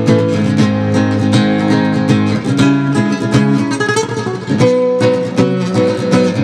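Cordoba C5-CET thin-body nylon-string guitar being played: strummed chords and plucked notes, with a slightly softer run of quick notes about halfway through.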